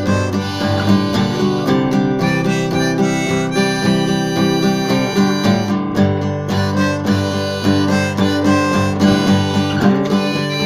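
Harmonica played from a neck rack together with a strummed acoustic guitar, an instrumental tune with the harmonica holding long notes over a steady strumming rhythm.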